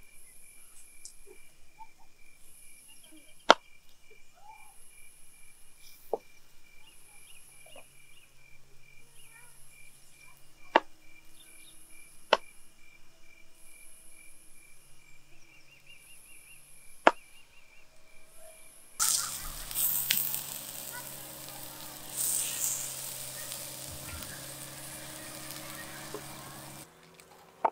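Crickets trilling steadily in the dark, with a higher insect call repeating about every second and a half and a few sharp clicks. About two thirds of the way through, the crackling and hissing of a wood campfire takes over, louder, then stops shortly before the end.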